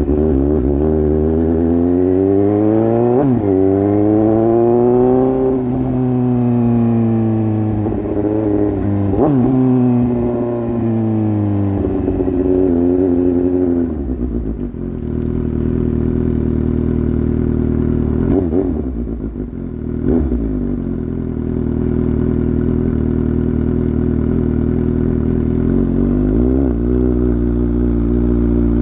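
Suzuki GSX-S750 inline-four motorcycle running with the dB killer removed from its exhaust, under way. In the first half the revs rise and fall several times, with sharp pitch drops at gear changes. The engine then holds steady revs, dips briefly about two-thirds of the way through and climbs again near the end.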